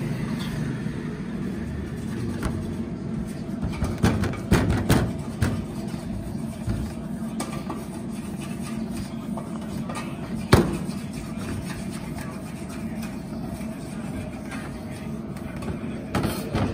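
Wooden rolling pin working paratha dough on a stainless steel counter, with sharp knocks of the pin against the steel: a cluster about four seconds in, one loud knock about ten seconds in, and more near the end. A steady low hum runs underneath.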